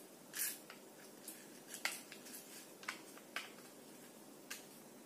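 Handling noise from a homemade castanet of folded cardboard with plastic bottle caps inside: a soft rustle about half a second in, then about half a dozen faint, scattered clicks.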